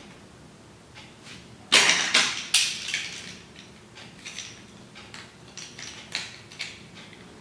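Wires and connectors being handled inside an electric scooter's deck. A loud rustle comes about two seconds in, with a second one shortly after, then a run of lighter clicks and taps.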